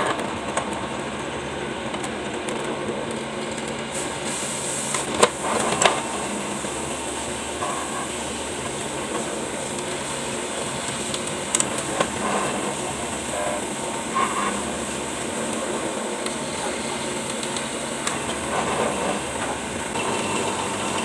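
Benchtop drill press running steadily while drilling holes through a string-trimmer head plate, with a few sharp clicks along the way.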